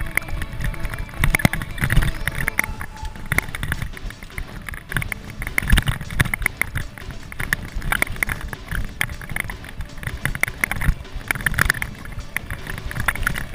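Mountain bike rattling down a rough dirt trail: tyres on dirt, with the chain and frame knocking over bumps in quick, irregular succession.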